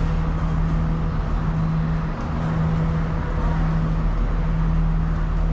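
Diesel engine of a stationary train idling, a steady low hum under the general noise of a busy platform.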